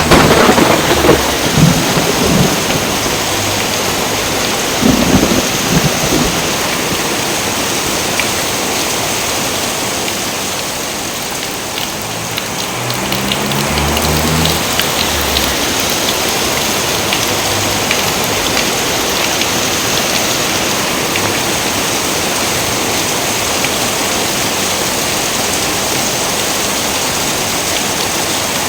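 Heavy, steady rain with thunder: several loud claps and rumbles in the first few seconds, a fainter rumble about halfway through, then the rain alone.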